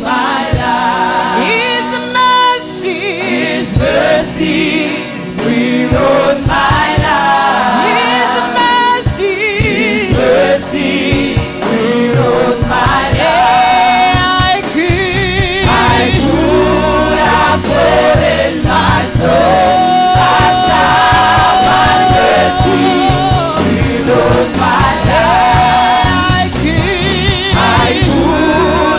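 Gospel worship song: a choir sings with wavering, held notes over a band with drums and bass.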